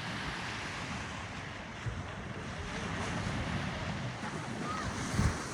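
Sea surf washing on the shore, with wind buffeting the microphone and a louder gust near the end.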